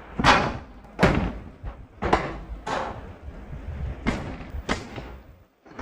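A run of about seven sharp thuds or slaps, irregularly spaced less than a second or so apart, each dying away quickly.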